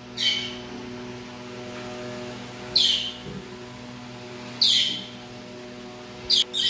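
A pet parrot giving short, sharp calls that each drop in pitch, about one every two seconds, with two in quick succession near the end. A faint steady hum sits underneath.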